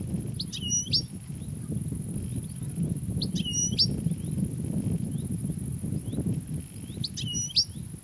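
European goldfinch calling: three short high calls about three seconds apart, with fainter chirps between them, over a steady low background rumble.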